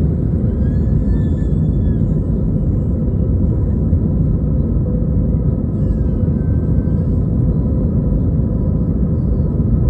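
Airbus A320 twin jet engines and airflow during takeoff, a steady low rumble.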